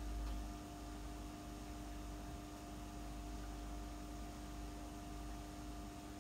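Steady electrical hum with a faint hiss and a low rumble underneath, unchanging throughout.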